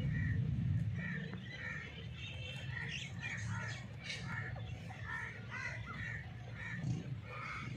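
Francolins giving short, harsh, repeated calls, about two or three notes a second, over a steady low rumble.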